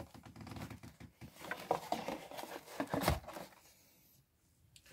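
Light handling noises: a few soft knocks and rustling as a metal spin-on diesel fuel filter canister is set down and handled, the loudest knock a little after three seconds in.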